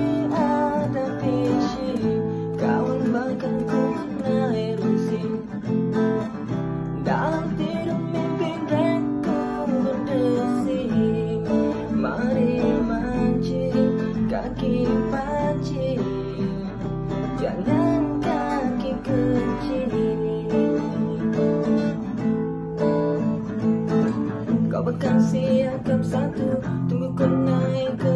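A song played on strummed acoustic guitar with a voice singing.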